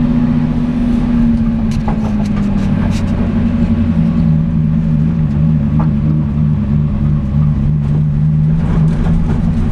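Turbocharged Lexus 1UZ-FE V8 of a Nissan 200SX drift car running steadily, heard from inside the stripped cabin. Its pitch eases down slightly over the first few seconds and then holds level, with a few sharp clicks over it.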